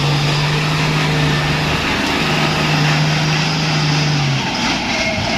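A truck's diesel engine running steadily at low speed. Its tone holds even, then drops away about four seconds in.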